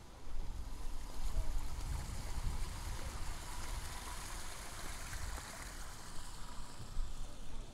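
Water splashing and burbling from a row of small dome-shaped jets in a street fountain channel, starting sharply about a third of a second in, with a low rumble underneath.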